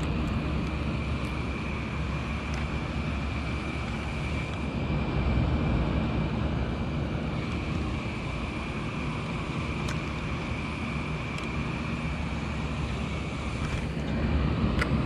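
Steady hum of outdoor air-conditioner units, with a low drone and a thin, even high whine held throughout.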